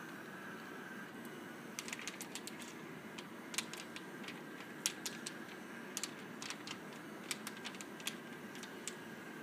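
Small two-wheeled drawing robot driving over sheets of paper, giving off a string of irregular sharp clicks and light rattles from about two seconds in until near the end, over a steady faint hiss.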